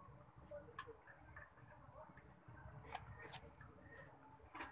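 Near silence broken by a few faint clicks of a metal hand tool against a finned aluminium heatsink on a TV power-supply board, two of them close together about three seconds in.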